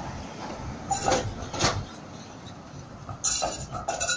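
Tram wheels clanking over the crossing rails of a tram junction: sharp metallic clacks about a second in and again in a quick cluster after three seconds, over the low rumble of the moving tram.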